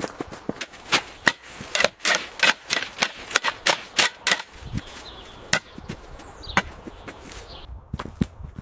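A rapid, irregular series of sharp knocks and clatters of hard objects, thick for the first four seconds or so and then sparser, with single knocks near the end.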